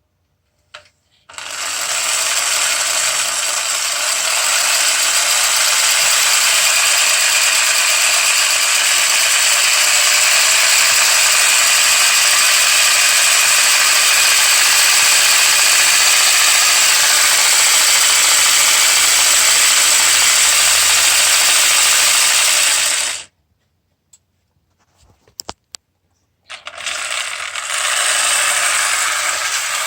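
1960 Lionel toy train locomotive running under power, its electric motor and gears whirring steadily with the wheels rattling on the track. The sound stops suddenly about three-quarters of the way through, a few faint clicks follow, and it starts up again near the end.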